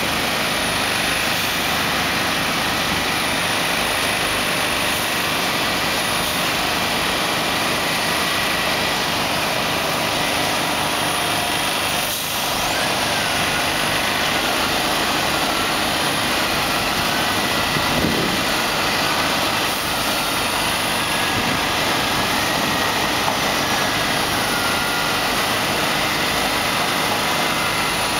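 Diesel engine of a heavy-haulage tractor unit running steadily at low speed as it slowly pulls a heavy trailer, with a faint wavering whine in the second half.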